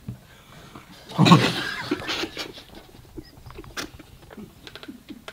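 Several men stifling laughter, muffled by hands and shirts held over their mouths: a loud burst about a second in, then quieter smothered laughs and small taps.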